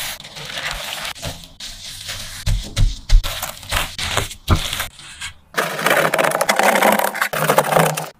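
Food-preparation sounds of a slab of snowflake crisp topped with meat floss in a metal baking tray: gloved hands pressing and scraping the topping and a wooden rolling pin pressing it flat, with irregular scrapes, rustles and a few knocks. A louder, denser stretch of scraping starts a little past halfway and runs until just before the end.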